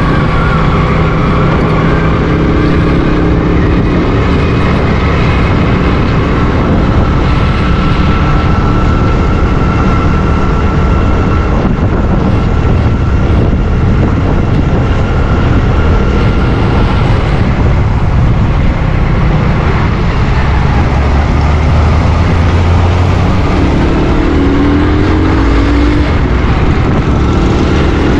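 Motorcycle engine running steadily while riding at about 25 mph, with constant wind and road rush; the engine note rises in a few short steps near the end.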